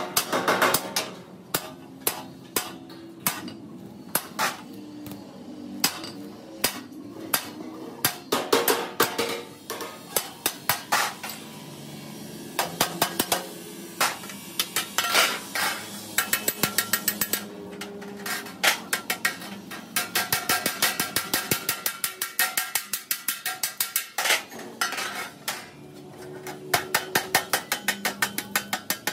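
Hammer blows on metal, struck again and again in irregular runs, some of them quick runs of several strikes a second.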